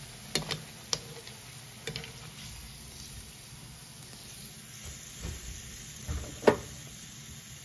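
Hot oil sizzling steadily in a frying pan around fried perch fillets, with a few sharp clicks and knocks of metal tongs against the pan as a fillet is lifted out; the loudest knock comes about six and a half seconds in.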